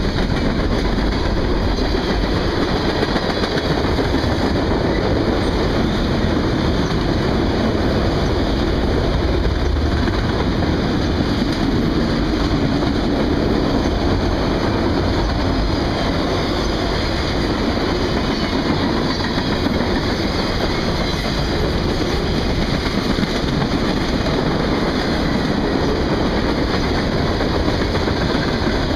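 Freight train's cars rolling past close by: steady wheel-on-rail noise and rumble from the passing cars.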